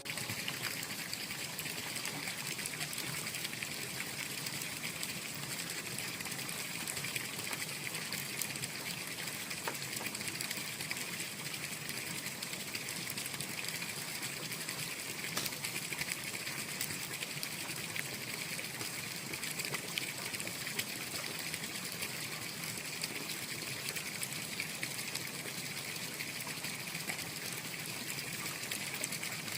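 Water flowing steadily in a continuous trickling rush, with faint scattered splashes.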